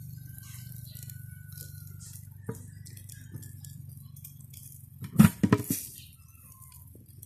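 A steady low hum, with a single knock about two and a half seconds in and a quick run of loud clinks and knocks a little past five seconds in.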